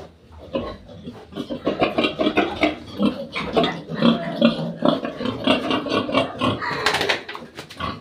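A group of young piglets grunting over one another, many short grunts in quick succession, with a brief sharper sound about seven seconds in.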